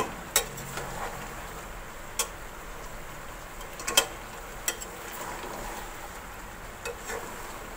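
A long steel spoon knocks and scrapes against a large aluminium pot as chicken and chopped tomatoes are stirred, giving a few scattered clicks. Under them runs a steady sizzle of the pot's contents frying.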